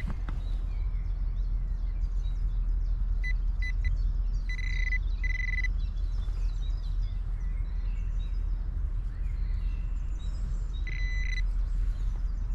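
Metal detector beeping over a soil plug: three quick high beeps, then two longer tones, and another longer tone near the end, each a sign of a metal target, here a scrap of aluminium foil. A steady low rumble underneath and faint bird chirps.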